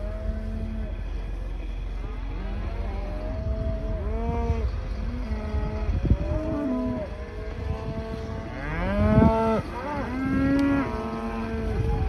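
A herd of black Angus cows and calves mooing, several long calls overlapping one another, the loudest about nine and ten and a half seconds in. A steady low rumble runs underneath.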